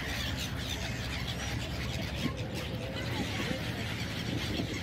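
A flock of gulls calling: many short, scattered calls over a steady low background noise.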